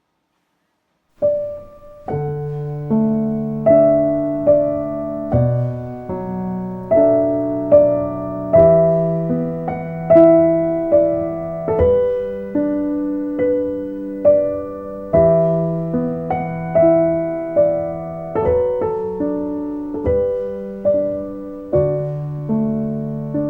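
Instrumental piano music: slow chords and a melody played note by note, beginning about a second in after near silence.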